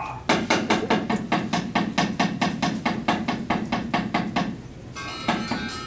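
A wooden knocker (cempala) rapped quickly and evenly against the wooden puppet box, about five raps a second, a dalang's cue in Balinese shadow puppetry. Near the end, ringing metallophone notes of gamelan music come in over the raps.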